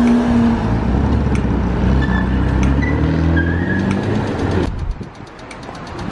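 Cars passing close in city street traffic, their engines a loud low rumble that rises and falls in pitch. About three-quarters of the way through it drops away suddenly, leaving the rapid, even ticking of a pedestrian crossing signal.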